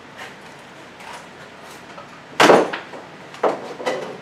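Hand-handling knocks in an engine bay as bolts and tools are set down: a few light taps, then two louder clunks about a second apart.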